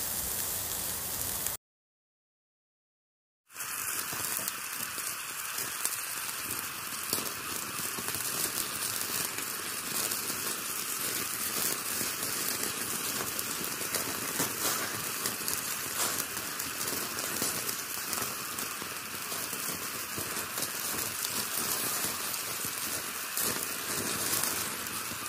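Marinated meat sizzling on a wire grill over hot charcoal: a steady hiss dotted with small crackles and pops from the coals. The sound cuts out completely for about two seconds near the start, then resumes unchanged.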